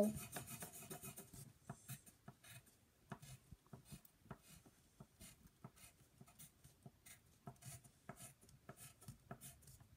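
Faint scratchy colouring strokes on paper, many short back-and-forth strokes a second, irregular in rhythm.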